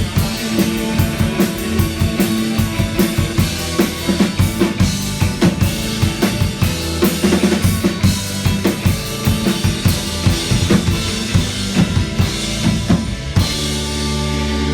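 Live rock band playing an instrumental passage: a drum kit drives a fast, steady beat with bass drum and snare under the band's sustained chords. About 13 seconds in, the drums stop and a held chord rings on.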